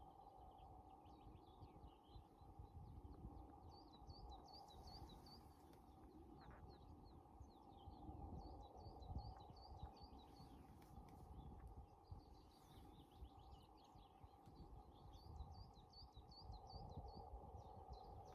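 Faint songbird singing: three short phrases of quick repeated high chirping notes, a few seconds apart. Under it are a low wind-like rumble and a steady hum.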